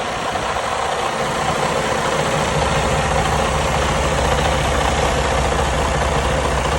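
Detroit DD15 inline-six diesel engine in a 2019 Freightliner Cascadia running at idle, just after a valve adjustment meant to cure a popping in the intake. About two and a half seconds in, the low rumble settles into a steady, even pulse.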